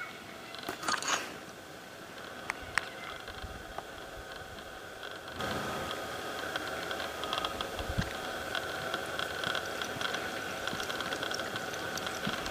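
Horse moving on soft arena dirt: a few light clicks while it stands and walks off, then muffled low hoofbeats as it picks up the pace, over a steady outdoor background.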